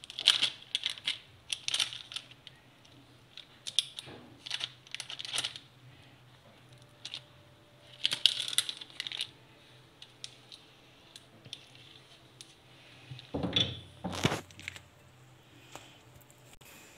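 Silicone spatula scraping and spreading brownie batter over baking paper in a tray, and against the mixing bowl, in short bursts of scraping and light tapping. Two heavier knocks come near the end.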